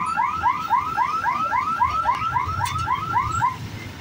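Level-crossing warning hooter sounding while the boom barrier lifts: a warbling electronic tone of about four rising-and-falling chirps a second that cuts off suddenly about three and a half seconds in, as the barrier reaches upright. Under it is the low rumble of idling motorcycle engines.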